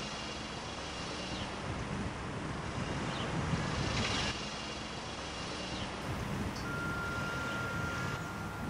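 Outdoor street ambience: the low, steady rumble of vehicle traffic with a few faint short chirps. A thin, steady high tone starts a little past two-thirds of the way through.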